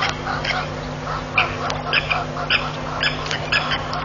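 Birds calling at a waterhole: short, repeated calls, a few every second and irregularly spaced, over a steady low electrical hum.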